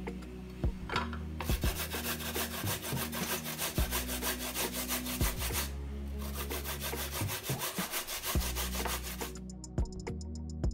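A carrot being grated on a flat stainless-steel hand grater: quick, even rasping strokes in two runs with a short break about halfway, stopping shortly before the end. Background music plays underneath.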